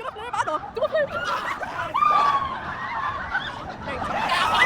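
Several people laughing and shrieking in short bursts, with one longer drawn-out cry about two seconds in.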